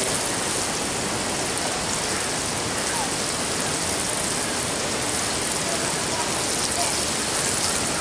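Tomatoes and onions frying in plenty of oil in a large aluminium pot over a wood fire, giving a steady, even sizzle.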